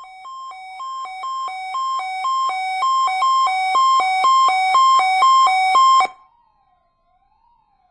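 Electronic two-tone hi-lo alarm alternating between a higher and a lower pitch about twice a second, growing louder and cutting off suddenly about six seconds in. A faint tone wails slowly up and down beneath it.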